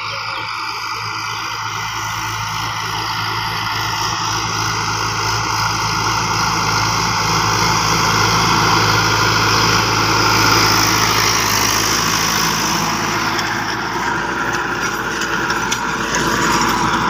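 Diesel tractor engine running steadily under load while pulling a rotary tiller through soil, getting louder as it comes closer over the first ten seconds; the sound shifts at about fourteen seconds to a closer tractor tilling.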